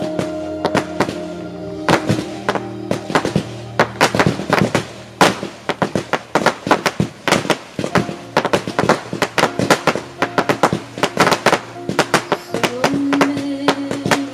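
Fireworks going off in rapid succession, a dense run of sharp bangs and crackles that grows thicker about two seconds in, over music playing underneath.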